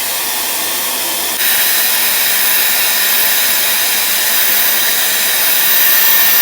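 Dyson hair-styling tool blowing air steadily, stepping up to a louder, higher setting about a second and a half in.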